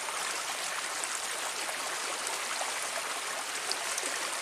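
Shallow water running steadily through a narrow ditch, an even rushing trickle.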